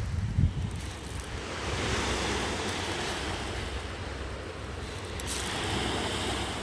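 Ocean surf washing onto a beach, the hiss of breaking waves swelling and easing twice, over a low rumble of wind on the microphone with a brief bump about half a second in.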